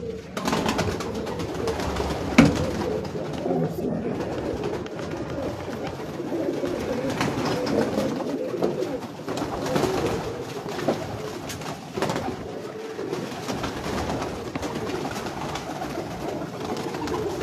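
A loft full of domestic pigeons cooing, many calls overlapping without a break. A few sharp clicks cut through, the loudest a couple of seconds in.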